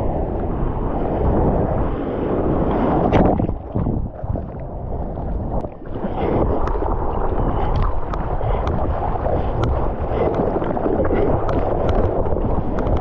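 Seawater sloshing and lapping against a bodyboard close to the microphone, with wind buffeting the microphone. Short splashes and drops of water tick in, more often in the second half.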